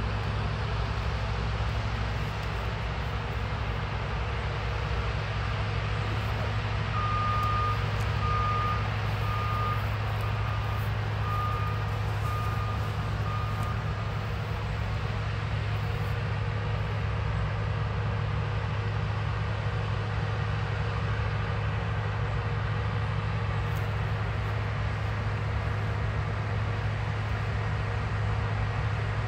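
New Holland combine harvester running steadily at work, a low, even drone. About seven seconds in, a reversing alarm beeps about eight times at an even pace over some seven seconds, then stops.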